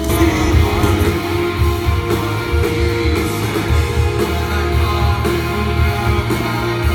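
Live rock band playing loud, with electric guitars, bass and drums, heard from the crowd.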